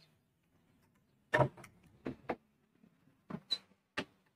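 A few short, sharp clicks and taps, in pairs about a second apart: small parts and tools being handled on a workbench.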